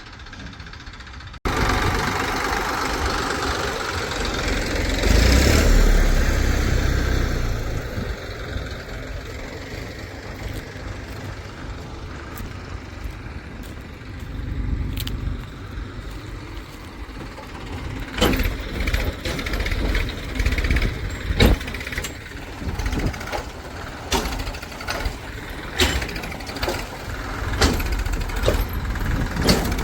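Diesel engine of heavy farm or earthmoving machinery running, swelling louder about five seconds in and then settling to a steady run. Through the second half, a series of sharp knocks and clanks sound over the engine.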